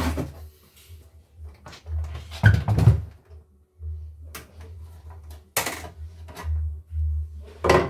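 Knocks and clatter of a plastic household embroidery machine being lifted, turned round and set down on a wooden workbench, the loudest a little under three seconds in, with more near six seconds and just before the end.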